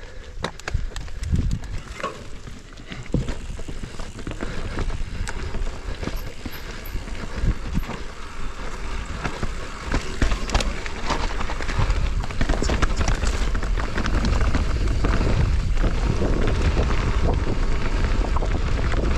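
Mountain bike setting off down a dirt trail: scattered knocks and rattles of the bike over bumps at first, then a denser clatter of tyres and frame with wind on the microphone growing louder as speed builds, steady after about twelve seconds.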